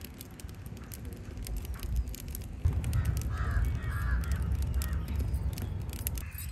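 Wood fire burning in a mud oven, crackling over a low steady rumble. A crow caws a few times about three seconds in.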